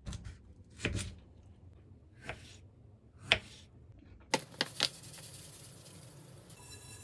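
Knife knocking on a wooden cutting board as pears are sliced: a handful of separate knocks, the sharpest about three seconds in, then three quick clicks followed by a faint steady hiss.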